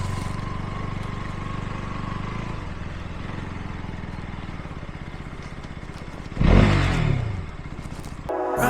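Motorcycle engine running steadily at low revs, with a louder swell about six and a half seconds in whose pitch drops away, like a rev or a vehicle passing. Music cuts in at the very end.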